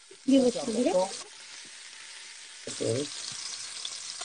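Pieces of veal sizzling as they sear in hot olive oil in a steel pan, a steady frying hiss that grows louder about three seconds in.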